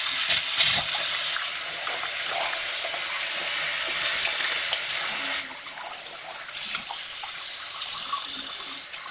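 Water tap running steadily into a sink, rinsing soap lather off hands between lather tests; the flow changes slightly about five and a half seconds in.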